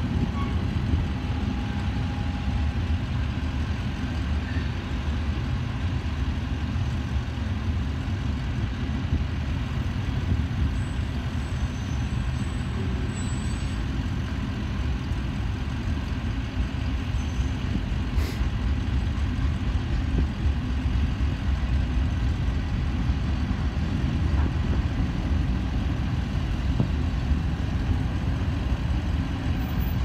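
Manifest freight train's cars rolling past a level crossing: a steady low rumble that stays even throughout, with road vehicles idling as they wait for the train.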